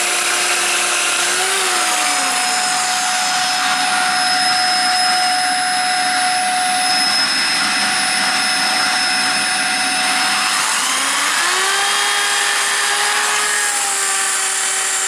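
Electric drill boring into a brick wall while a vacuum cleaner runs at the hole to suck up the dust: a loud, steady motor noise with a high whine. A lower motor tone sags about two seconds in and climbs back up around eleven seconds.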